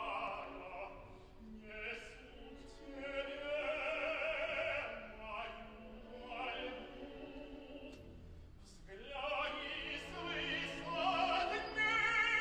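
Operatic singing with a wide vibrato over an orchestra. It dies down briefly a little past the middle, then swells loudly near the end.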